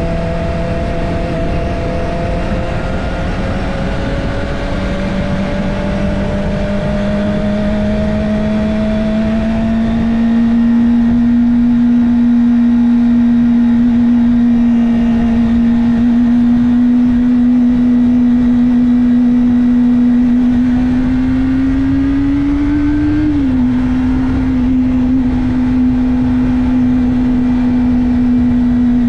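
Kawasaki Ninja ZX-25R's 249 cc inline-four running at steady cruising revs under wind rush, its pitch creeping up slowly. About three-quarters of the way through the revs climb briefly, then drop sharply and settle again.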